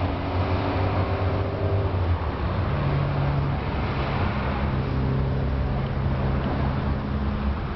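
Steady city traffic rumble, with a vehicle engine's low drone coming in about two and a half seconds in.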